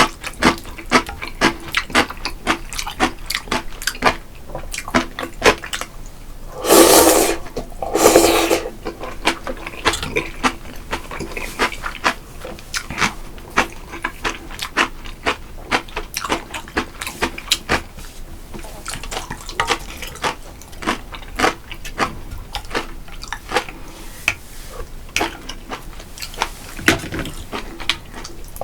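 Close-miked eating of spicy mussel jjamppong: wet chewing and lip smacks throughout, with two loud slurps of noodles about seven seconds in, a second apart.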